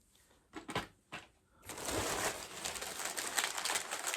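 A few light clicks, then from about two seconds in a mystery pin blind bag crinkling steadily as it is handled and torn open.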